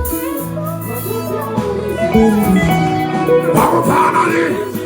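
Live band music: an instrumental passage led by guitar over a bass line, between sung lines.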